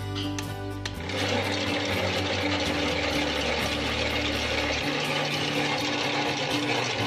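Background music with a steady bass line. From about a second in, a steady mechanical whirring joins it, fitting a motor-driven hoist winch lifting a barrel of bricks.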